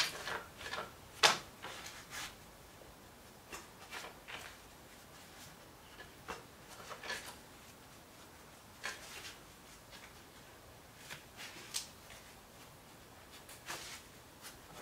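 Small brass key-bushing cauls clicking and tapping against wooden piano keys as they are pushed one by one into the keys' front rail mortises to size the felt bushings. A dozen or so light, scattered clicks, the sharpest about a second in.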